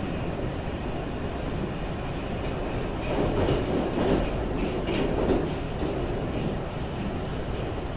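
Moscow Metro Moskva-2020 train running through the tunnel between stations, heard from inside the passenger car: a steady rumble of wheels on rail that swells louder from about three to five seconds in.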